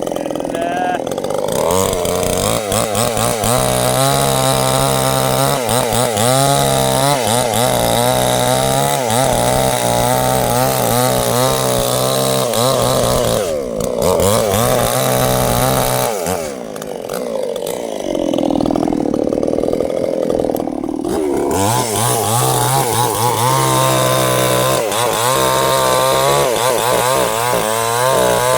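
Two-stroke chainsaw running at full throttle, cutting sengon wood. About halfway through, the engine drops back toward idle for a few seconds, then revs up and cuts again.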